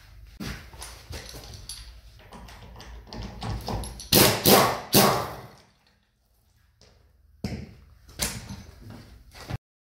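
Impact wrench hammering on a car's wheel nut in two loud bursts about four seconds in, with knocks and clatter of the tool and nuts before and after.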